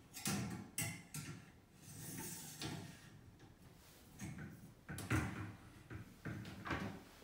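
Wire-mesh document trays being slid into a metal wire tray frame: metal scraping and clinking, with a run of light knocks, the sharpest about five seconds in.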